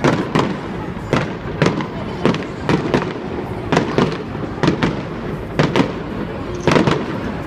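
Fireworks going off in a rapid series of sharp bangs, about two a second, over a steady rumble of further bursts.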